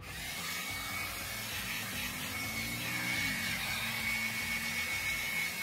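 Hand-held hair dryer blowing steadily on its hot, high-power setting: a rushing hiss of air and motor, with a thin high whine joining about two seconds in.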